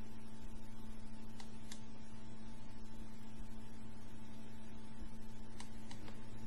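Steady electrical hum with a thin higher tone above it, and a few faint sharp clicks, two close together early and two more near the end.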